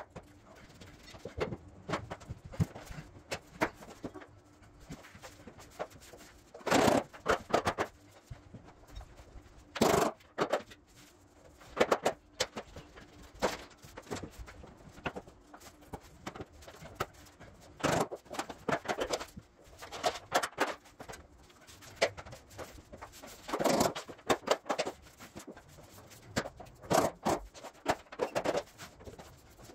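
Luxury vinyl planks being laid by hand on foam underlayment: irregular knocks, clicks, taps and scrapes of planks and hand tools, coming in clusters every few seconds.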